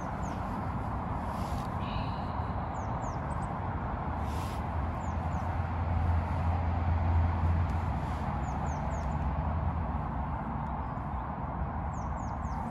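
Steady outdoor rushing noise, a little stronger in the middle, with brief high chirps of small birds in twos and threes, each chirp falling in pitch.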